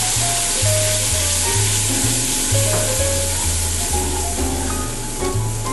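Steady sizzle of broth and cream in a hot enamelled cast-iron pot as cream is poured in and stirred, under background music whose stepping bass notes are the loudest part.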